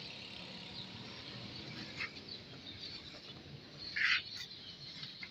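Faint outdoor background with a short, high bird chirp about two seconds in and a louder one about four seconds in.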